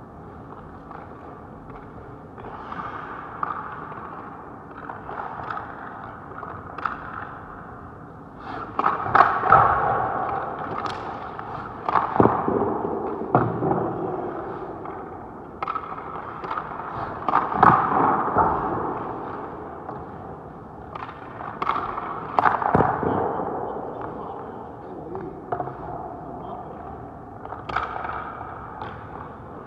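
Ice hockey goalie's skate blades scraping and carving the ice in repeated pushes, each swell set off by sharp knocks of pads and stick hitting the ice, several times over.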